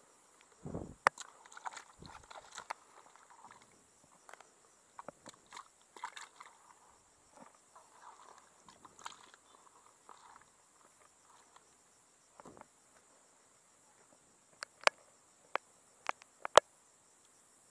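Live freshly caught fish flapping and splashing in a bucket of water while a hand rummages among them, then several sharp slaps of fish thrashing near the end. A steady high insect drone runs underneath.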